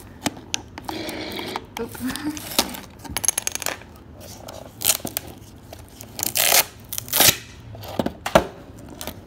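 Clear plastic protective film being peeled and pulled off a hard plastic toy bathtub, with crinkling, tearing streaks and sharp clicks and knocks as the tub is handled and tipped.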